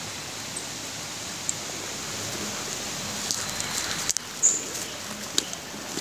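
A steady rushing hiss, with scattered clicks and rustles in the second half, the loudest about four and a half seconds in.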